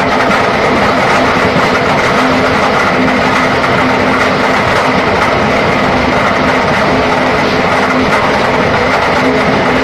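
Concrete pipe machine running, its steel pipe mould spinning on the suspended roller shaft: a loud, steady clattering rumble with a low hum that comes and goes and a higher steady whine.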